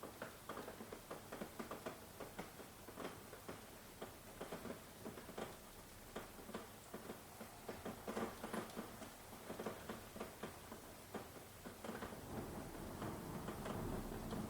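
Rain falling, heard as a dense, irregular patter of single drops ticking. A low rumble builds in under it near the end.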